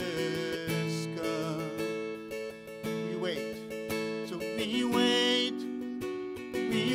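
Acoustic guitar strummed, with a man's singing voice coming in briefly now and then.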